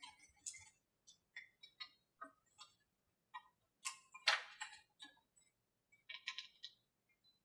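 Small clicks and crackling of thin wooden model-airplane fuselage parts and tape being handled and pressed together, in short scattered bursts, the loudest a little past halfway.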